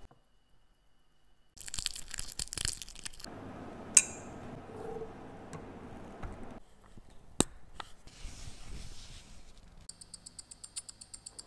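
An IWC automatic chronograph being assembled: crackling handling noise, then a very sharp click about four seconds in and another near seven seconds as the sapphire crystal is pressed into the case. Near the end comes a fast, even ticking.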